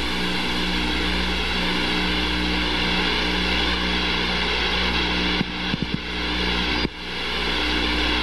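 Steady jet-aircraft drone of flight-deck noise with a constant whine on top, heard through the carrier's deck recording feed. The sound dips with a few clicks about five and a half seconds in and drops out briefly near seven seconds before coming back up.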